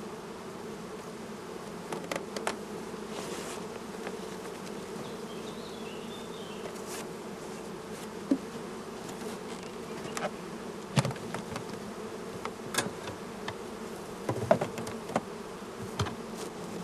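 A mass of honeybees buzzing in a steady hum, with scattered sharp knocks and clicks of frames and wooden hive boxes being handled, the loudest about eleven and fourteen seconds in.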